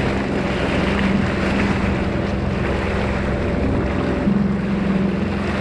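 Jet ski engine running steadily, with water splashing and wind noise on the microphone; the engine hum gets louder about four seconds in.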